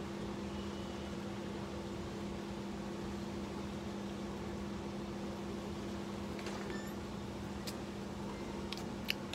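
Steady mechanical hum of a running motor or fan, holding two low tones, with a few faint light clicks in the last few seconds.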